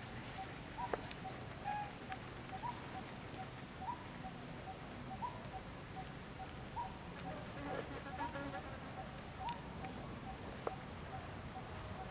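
Insects calling in the background: a steady high thin whine with a rapid train of short chirps and a rising note roughly every second. A brief squeaky call comes about eight seconds in.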